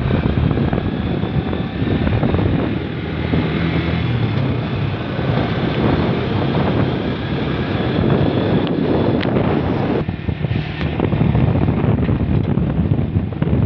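Wind buffeting the microphone on a moving vehicle, with road and engine noise underneath, loud and steady throughout.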